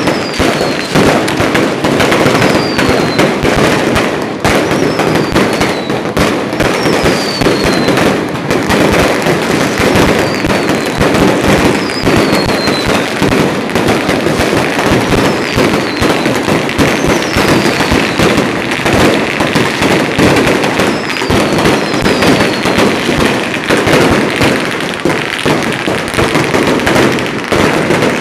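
Long strings of firecrackers going off in a dense, unbroken crackle of bangs, with short high falling whistles every second or two.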